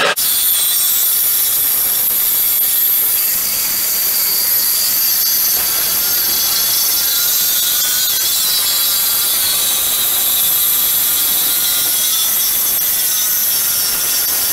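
Corded electric jigsaw running steadily, its blade sawing through the wooden top of a box to cut out a round hole.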